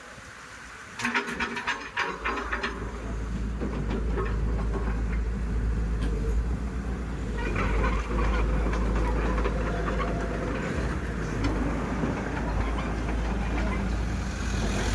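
CAT 312C excavator's diesel engine and machinery running with a steady low rumble, starting with a burst of clattering about a second in.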